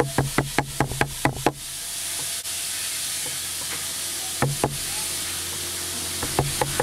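Hammer tapping a hand tool held against a belt on a wooden bench: quick, even knocks about five a second, stopping after a second and a half, two more knocks about four and a half seconds in, and the quick tapping starting again near the end. A steady hiss lies under it.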